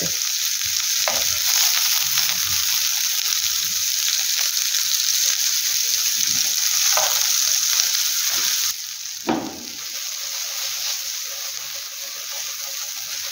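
Stuffed okra sizzling as it fries in oil in a nonstick pan, with a few light clicks of metal tongs turning the pieces. About nine seconds in the sizzle suddenly drops and a single knock follows as the pan is shaken.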